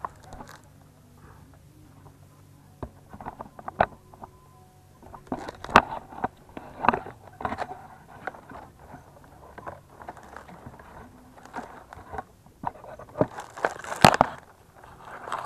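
Dry coconut palm fronds rustling and crackling as a climber works among them beside a bunch of young coconuts, with scattered sharp knocks and scrapes. The loudest knocks come about six seconds in and again near the end.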